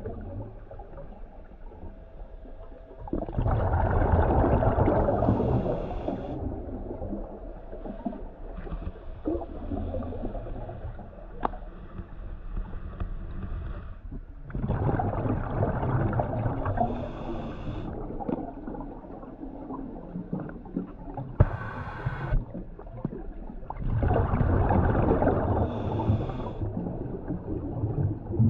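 A scuba diver breathing underwater through a regulator: three bursts of exhaled bubbles, each a few seconds long and roughly ten seconds apart, with quieter noise between them.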